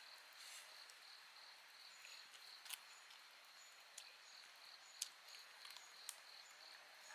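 Faint steady high-pitched chirring of insects, with a few short sharp clicks scattered through.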